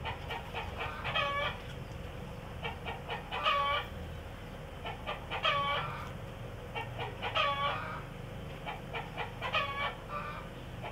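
Hen cackling: a few short clucks build to a longer drawn-out squawk, and the phrase repeats about every two seconds.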